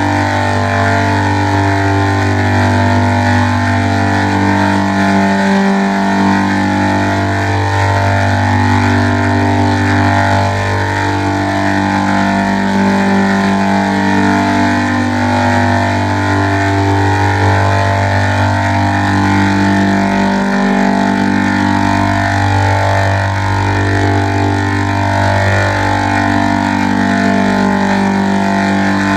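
Electronically processed music: held, overlapping synth-like chords that change every second or so over a long sustained bass note. The bass note shifts about six seconds in and again about twenty seconds in.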